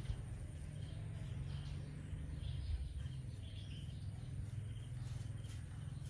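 Outdoor ambience: a steady low rumble with faint short high chirps scattered through it every half second to second.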